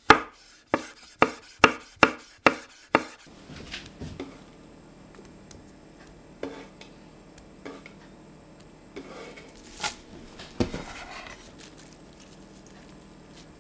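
Chef's knife chopping a red chili on a wooden cutting board: seven sharp strikes about two a second over the first three seconds. A few softer knocks and taps follow later, the loudest about ten to eleven seconds in.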